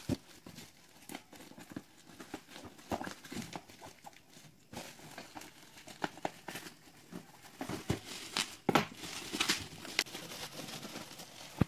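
Black plastic parcel wrapping crinkling and tearing as it is pulled off a box, in irregular crackly bursts that are loudest about two-thirds of the way in.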